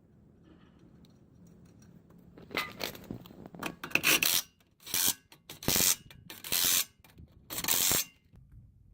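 Socket ratchet clicking in about six short bursts, each a stroke of the handle, as the wheel's lug nuts are run down.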